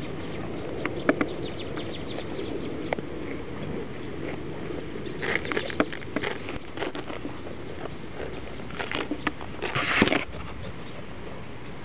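Goats grazing close by: quick tearing and crunching as they crop grass, bunched about five seconds in and again near the end, with the loudest burst just before the end.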